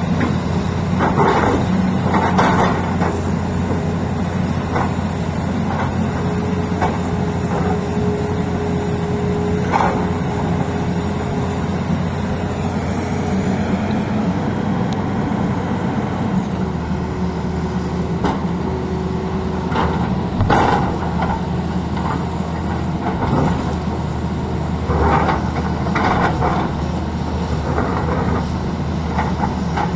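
Tata Hitachi excavator's diesel engine running steadily under work, with scattered knocks and a steady whine for a few seconds at a time in the middle.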